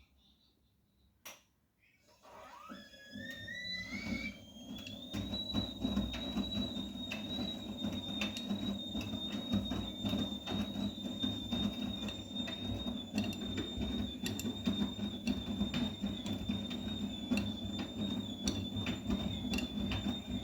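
Vestel CMI 97302 washing machine's drum motor: after a single click it starts about two seconds in with a rising whine, then runs steadily with a high whine over the rattle of the turning drum, and stops just at the end.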